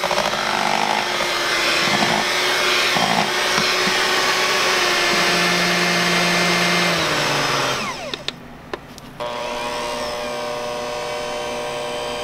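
Handheld electric mixer running with its beaters whipping chocolate and cream ganache in a stainless steel bowl. Its motor runs loudly and steadily, then about eight seconds in it winds down with a few clicks and carries on more quietly.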